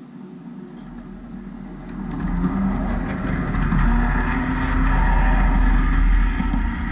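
Model Budd RDC railcar running along the layout track and passing close by: a low rumble with a whir that grows steadily louder over the first few seconds, is loudest about four to six seconds in as it goes by, then eases a little.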